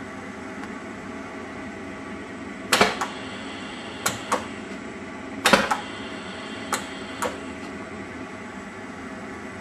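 A lamp-type on-off foot switch is pressed four times. Each press gives a pair of sharp clicks as it switches the solenoid valves for the torch's big flame. Under the clicks runs the steady hiss of the burning oxygen-gas glassblowing torch.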